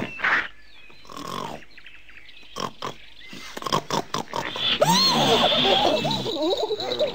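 Cartoon wild boar grunting and snorting in short bursts, then a louder, longer run of wavering cries from about five seconds in, over a thin high tone.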